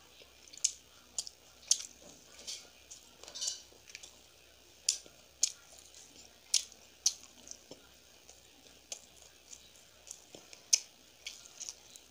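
Close-up chewing and biting of fried gol pitha: sharp, irregular crackles and mouth clicks at uneven intervals, with one loud click near the end.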